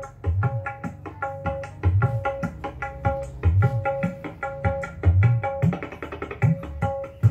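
Music with a drum beat and deep bass thumps, played loud through a 10-inch ACR Fabulous loudspeaker driven by a TY200 active speaker amplifier module.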